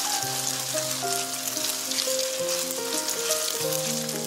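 Beaten egg with chopped green chilies frying in hot oil in a wok, a steady sizzle with crackling, as the second side of the egg-and-chili pancake fries after turning. Background music with a melody plays alongside.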